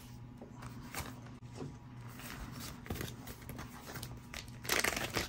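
Plastic coin bags being handled: a string of soft clicks and rustles, with a louder crinkle near the end.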